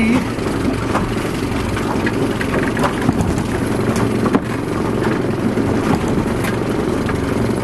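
Outboard motor of a small fishing boat running steadily, with a few light knocks scattered through.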